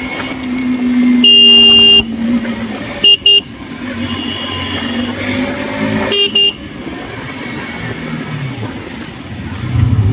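Vehicle horn honking in street traffic: one long blast about a second in, two quick toots about three seconds in, and another short blast about six seconds in, over a motorcycle engine running.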